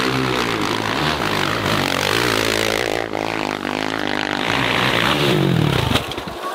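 Dirt bike engines revving hard, their pitch rising and falling with the throttle as the bikes climb. The engine note changes abruptly about halfway through and drops away near the end.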